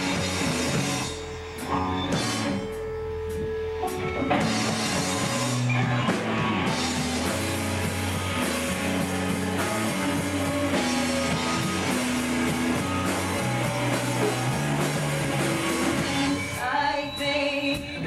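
Live rock band playing an instrumental passage: electric guitars and a drum kit, picked up by a VHS-C camcorder's microphone in a small room.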